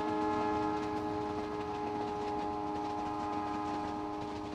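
A train horn sounding one long, steady multi-tone chord over the noise of the moving train, slowly fading.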